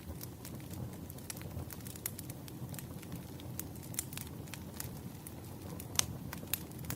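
Campfire burning: wood crackling and popping in irregular sharp snaps over a low, steady rumble of flame, with one louder pop about six seconds in.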